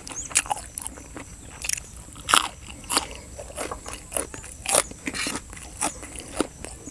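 Close-up eating sounds: a man biting and chewing spicy chicken-feet salad and fresh vegetables, with crisp crunches and mouth clicks at irregular intervals.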